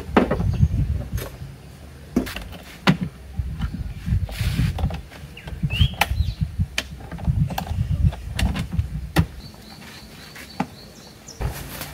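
Hard-plastic stackable storage crates being handled: a hinged lid flipped open and shut, crates set down on top of one another and latches snapped, giving a run of sharp clicks and knocks. A low rumble comes and goes underneath.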